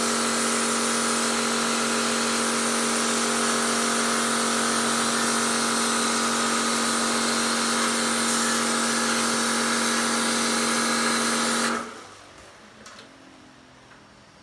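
Electric pressure washer running steadily, its motor and pump humming under the hiss of the water spray, then switched off abruptly about twelve seconds in.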